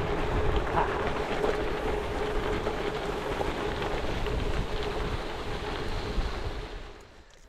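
Wind buffeting the microphone over the rumble and rattle of a gravel bike riding fast on a rough unpaved track, fading out near the end.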